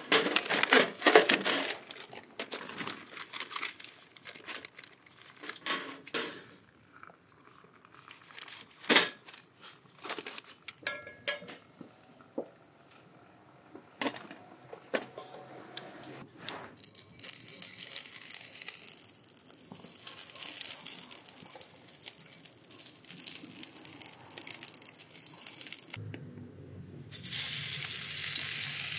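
Newspaper crinkling and a stainless tray and tools being set down, with a few sharp metal clicks. From just past the middle comes a steady sizzle of oil on the hot Yokozawa Teppan iron griddle, and near the end pork belly slices sizzle on the plate.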